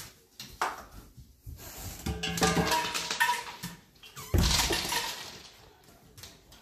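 Stainless steel dog bowl clattering and ringing as it is knocked about, with dry kibble rattling and scattering onto a hard floor. A single loud metal clang about four seconds in, ringing on as it fades.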